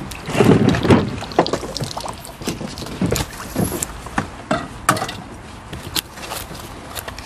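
Water splashing about as a hooked crucian carp is drawn to the bank and lifted out, loudest in the first second or so. This is followed by scattered light clicks and rustles of the fish and tackle being handled.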